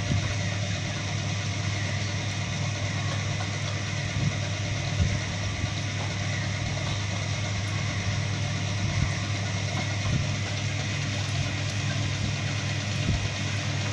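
A machine running with a steady low hum that holds an even pitch throughout.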